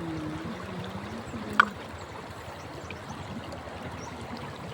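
River water flowing steadily, with a faint voice early on and a single sharp click about one and a half seconds in.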